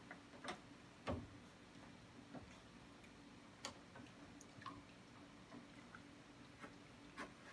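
A few faint, scattered clicks and knocks as a protein skimmer is fitted down into an aquarium's back chamber, over a low steady hum.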